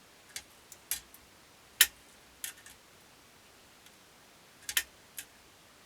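Irregular light clicks and taps from handling the carved wooden dummy head and its moving parts, about eight in all, the loudest a little under two seconds in.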